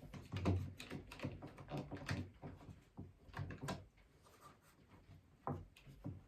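Scattered wooden knocks and clicks as a clamp is set on stacked wooden picket fence boards and the boards are handled.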